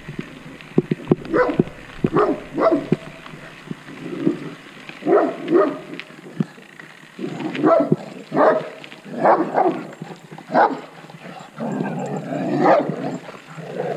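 Dog barking over and over, short barks in twos and threes at uneven gaps, with a longer run of barking about twelve seconds in.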